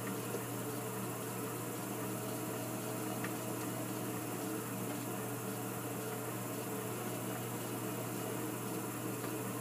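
Electric potter's wheel motor humming steadily, with a metal trimming tool scraping leather-hard clay off the base of a bowl turning on the wheel.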